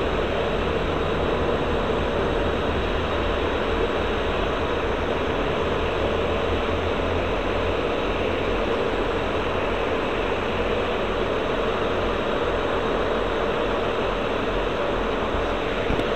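South Western Railway diesel train running steadily beside the platform, an even mechanical noise with no breaks.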